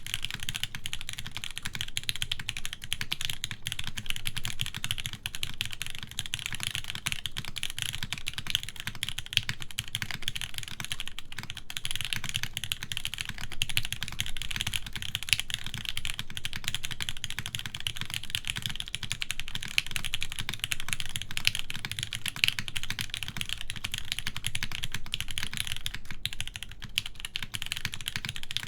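Continuous fast typing on a top-mounted mechanical keyboard with Gateron Oil King linear switches, an aluminum plate and GMK keycaps: a dense, steady stream of keystroke clacks.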